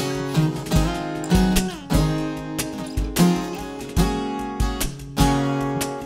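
Acoustic guitars strumming chords in a slow song, with a cajón marking a steady beat in low thumps. This is an instrumental passage between sung lines.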